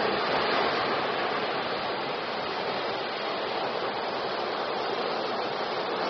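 Ocean surf: waves breaking and washing in as a steady rushing hiss of foam, a little louder right at the start.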